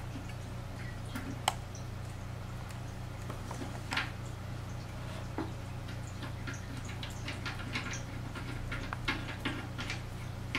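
Small, irregular clicks and scrapes of fingers working a fitting under the rim of a ceramic toilet bowl, more frequent in the second half, over a steady low hum.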